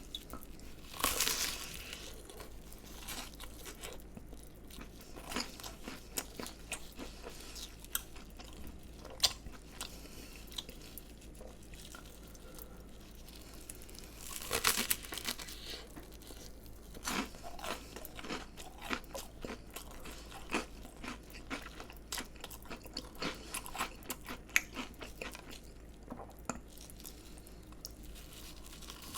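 Close-miked bites into crispy fried food, each followed by crunchy chewing: two loud crunching bites, about a second in and about halfway, with a run of smaller chewing crunches after each.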